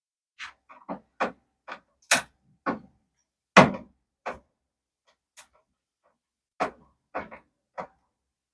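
About a dozen irregular small clicks and knocks, the loudest about three and a half seconds in, from small hardware and tools being handled and set down in a tray while the landing gear is taken off a radio-controlled model plane.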